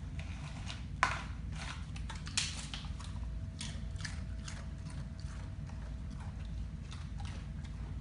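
Irregular crisp crunches and clicks of nacho chips being picked from a bowl and eaten, with two sharper cracks about one and two and a half seconds in.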